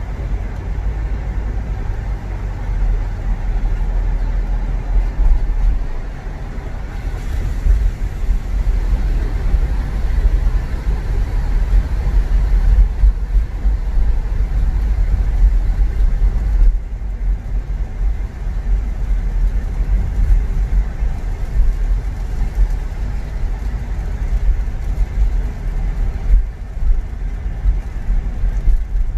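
Car driving along: a steady low rumble of engine and road noise.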